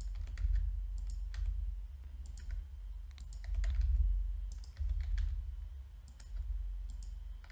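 Irregular clicks of computer keyboard keys and mouse, about one or two a second, over a steady low hum.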